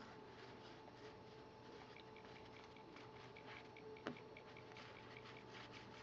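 Near silence: room tone with faint rustling of baseball cards being handled, and one light click about four seconds in.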